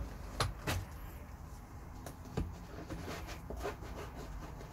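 Handling sounds as watches on fabric straps are placed in a canvas tool roll: a few sharp clicks and taps, two close together near the start and another about two and a half seconds in, with lighter ticks and soft rustling between.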